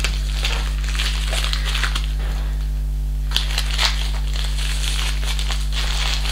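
Plastic packaging pouch crinkling and rustling as hands handle it and work at the rolled canvas inside, easing off briefly about halfway through, over a steady low hum.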